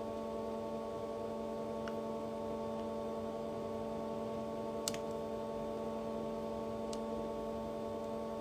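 A steady hum of several held tones, with a few faint clicks about two, five and seven seconds in.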